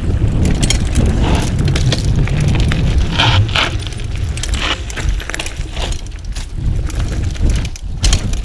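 Mountain bike rolling over gravel and a dirt trail: tyres crunching and the bike rattling and clicking over bumps, with a couple of louder rattles a few seconds in, over a steady low rumble.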